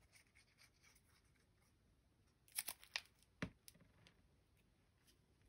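Mostly quiet handling of paper and a plastic adhesive dispenser. A few short crisp rasps and clicks come about halfway through, followed by a single sharp tap.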